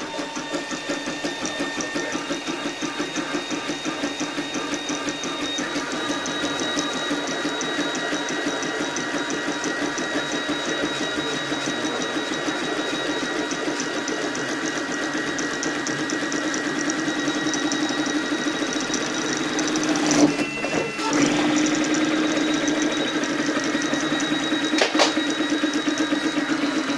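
High-speed 3D printer printing PETG: the stepper motors buzz and whine in a fast, even rhythm as the toolhead shuttles at very high speed and acceleration, over a steady high-pitched whine. A sudden louder clatter comes about twenty seconds in, and a single sharp click near the end.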